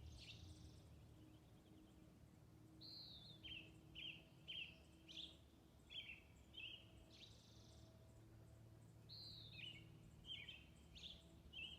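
Faint birdsong: a songbird repeating short chirping notes, some of them sliding down in pitch, over a low steady outdoor background.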